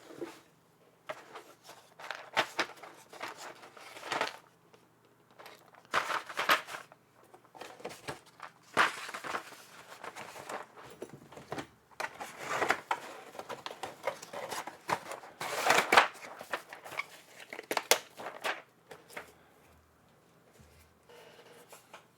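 GMK keycaps being handled and pressed onto the switches of a Neo65 keyboard: irregular clusters of plastic clicks, dying down near the end.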